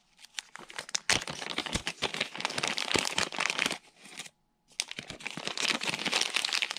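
A small parts package crinkling and rustling in the hands as it is opened. It comes in two stretches, with a brief break a little past halfway.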